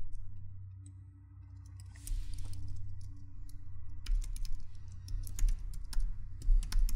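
Typing on a computer keyboard: quick key clicks that start about two seconds in and come thick and fast over the last few seconds.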